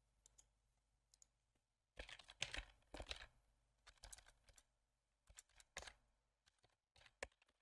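Faint computer keyboard typing and mouse clicks: scattered short clicks, bunched most densely about two to three seconds in, with a few more near the end.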